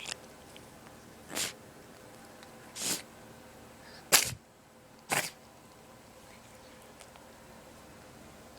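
A domestic cat with a cold sneezing in a rapid series, four sharp sneezes roughly a second apart, the third the loudest, after a faint one at the start; the sneezing stops about halfway through.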